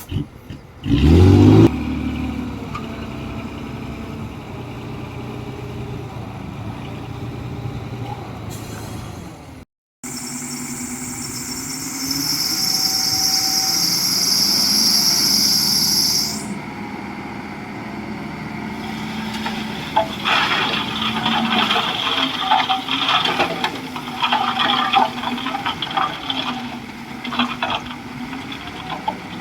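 Heavy diesel machinery. An engine revs up sharply about a second in, then runs on steadily. A loud hiss follows from about 12 to 16 seconds, and from about 20 seconds irregular clanking and rattling sits over an engine whose pitch rises and falls under load.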